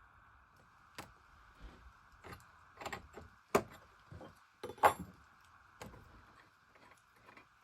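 Scattered light clinks and knocks of a freshly sharpened chainsaw ripping chain and its bar being handled, the two loudest a little past the middle.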